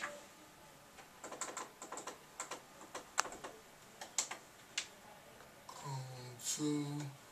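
Computer keyboard being typed on: a run of irregular key clicks lasting a few seconds. Near the end, a few short low pitched tones come in.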